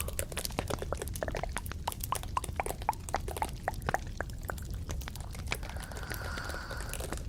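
Close-miked ASMR trigger sounds: a quick run of small clicks and short wet-sounding plops that thins out after about four seconds, then a soft steady rubbing hiss near the end.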